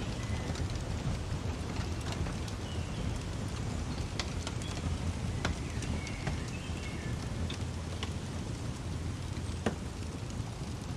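Fireplace crackling: scattered sharp pops and snaps over a steady low rumble of the fire, with a sharper pop near the end. Short, faint bird chirps sound now and then behind it.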